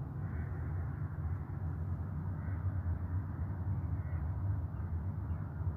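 Steady low outdoor rumble of background noise, with a few faint short calls above it.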